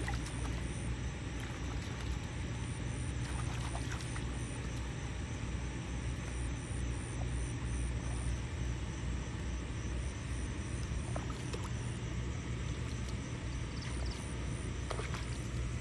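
Steady low engine drone with a constant hum and a hiss above it, unchanging throughout, with a few faint clicks.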